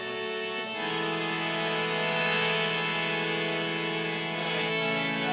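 Live band playing the instrumental opening of a song: held chords that change about a second in and again near the end.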